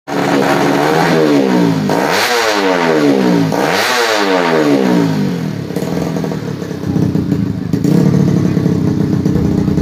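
Tuned 130cc four-stroke underbone (bebek) drag bike engine revved hard a couple of times in quick succession, its pitch sweeping up and down. For the last few seconds it runs steadily at lower revs.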